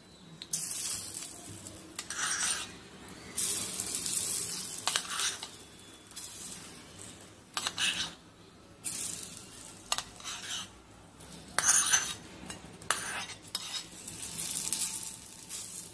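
A spoon scraping around inside a kadhai in short, irregular strokes about every one to two seconds, as a tadka of oil, green chillies and curry leaves is scooped out and poured onto baingan bharta.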